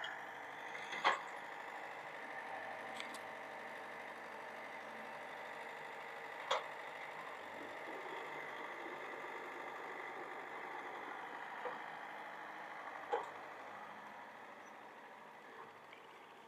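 Mini excavator's diesel engine running steadily as the machine works, with a few sharp knocks from the machine, the loudest about a second in, near the middle and near the end.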